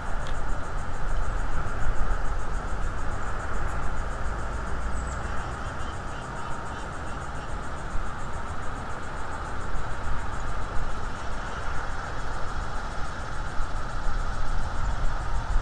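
Insects trilling steadily, a fast, even pulsing high in pitch, over a constant hiss and a low rumble from the outdoor microphone.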